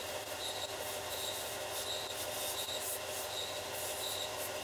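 Clarke 4" x 36" belt sander running with a Micarta pick handle held against the belt, a steady sanding hiss with a faint high chirp repeating about every two-thirds of a second.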